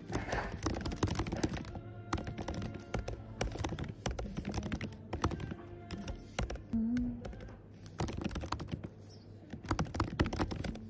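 Rapid clicking and tapping from hands working close to the phone's microphone, over soft background music.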